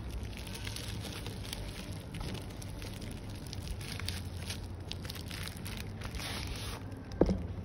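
Plastic mailer bag crinkling and rustling as it is handled and opened, with a single thump near the end.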